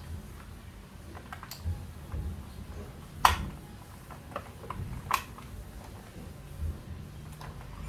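Scattered clicks and light knocks of hands handling the plastic body and parts of an RC monster truck, with one sharper click a little over three seconds in and another about five seconds in, over a faint low hum.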